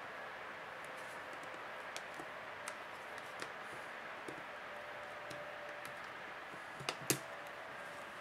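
Small scattered clicks and taps from a Samsung Galaxy Tab 3's housing being handled and pried at by hand, with two sharper clicks about seven seconds in, over a steady hiss.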